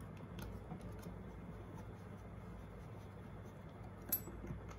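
Faint clicks and light ticks of small screws and frame parts being handled and fitted on a drone frame by hand, with one sharper metallic click about four seconds in, over a low steady hum.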